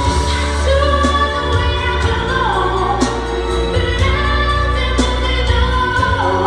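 A teenage girl singing a slow pop ballad in English over instrumental accompaniment with deep bass and a steady beat of about one stroke a second.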